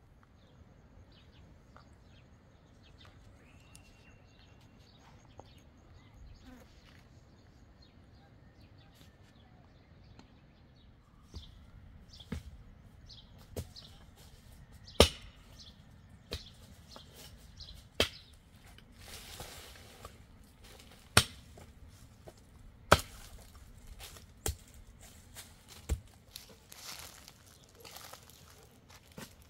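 Stones knocking and clacking against each other as rocks are lifted and set into a dry stone wall, with scraping and rattling of loose rubble. After a quiet first third, the sharp knocks come irregularly, a second or few apart.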